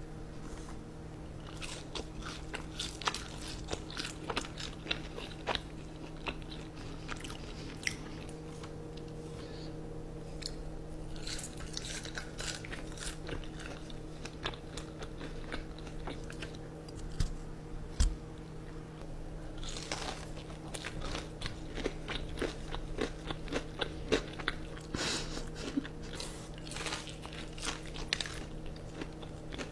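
Close-up eating sounds: crunching bites and chewing of fried chicken tenders and fries dipped in ranch, over a steady low hum. There is one sharp knock about halfway through.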